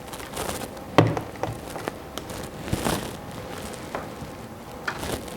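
Hard plastic breast-pump parts being handled and fitted together: scattered clicks and light knocks, the loudest a sharp knock about a second in.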